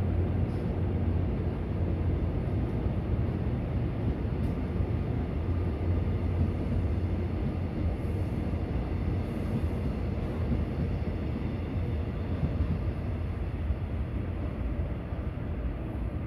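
Korail Gugak Wine Train passenger coaches rolling past on the station track: a steady low rumble of wheels on rail with a few faint clicks. The rumble eases slightly near the end as the last coach clears.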